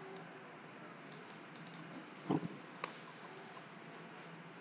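A few faint clicks and taps at a computer keyboard, with one louder short knock about two seconds in, over quiet room noise.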